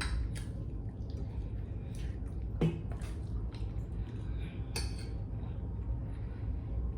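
Mealtime tableware sounds: a few sharp clinks of utensils against a plate, over a steady low hum.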